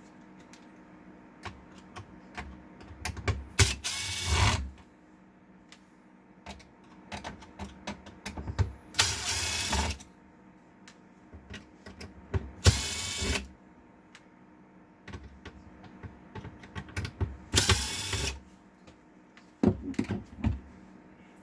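Small power screwdriver running in four short bursts of about a second each, backing out the printer's top-plate screws one at a time. Light clicks of handling come between the bursts.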